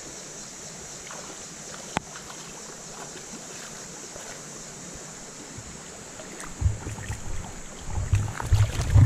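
Shallow creek water running over gravel with a steady hiss. A single click about two seconds in, then low rumbling thumps near the end.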